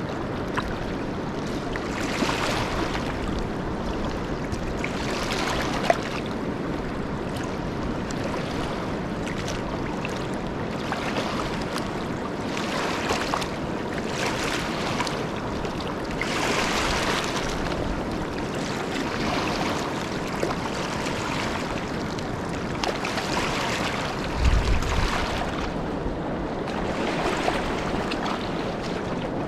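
River water rushing and lapping, with wind on the microphone; the noise swells every few seconds. A low thump comes near the end.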